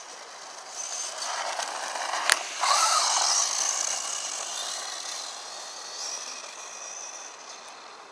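Traxxas 1/16 Slash VXL radio-controlled truck running past close by: the whine of its brushless motor and gears, with its tyres on gravel, swells to a peak about two to three seconds in, where there is one sharp click, then fades as the truck drives away.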